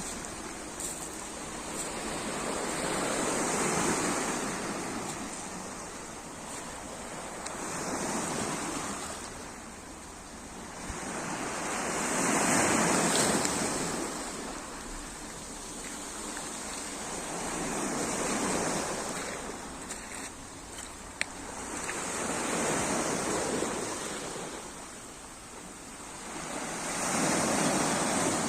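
Sea waves breaking on the shore and washing back, a hiss that swells and fades about every four to five seconds.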